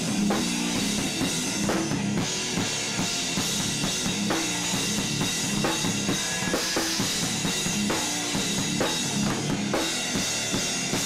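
Rock band playing: a drum kit pounding out a busy rhythm of bass drum, snare and cymbals, with electric bass and guitar underneath.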